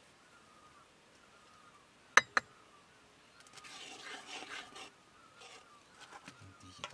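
Two sharp clinks of a metal spoon a little after two seconds, then about a second and a half of the spoon scraping and scooping in a pot of nettle curry, with a few lighter knocks near the end.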